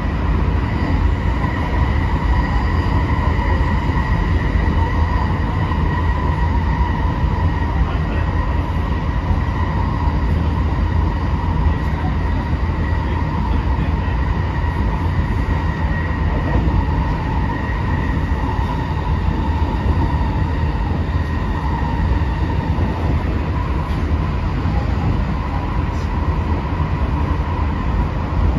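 Running sound inside a JR West 225 series 100-subseries motor car at speed: a heavy, steady rumble of wheels on rail, with a steady whine from the Toshiba IGBT VVVF inverter and traction motors.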